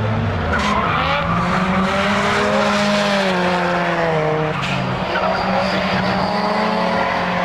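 Race car engine running hard, its note rising and falling as the driver works the throttle, with tyres squealing as the car slides.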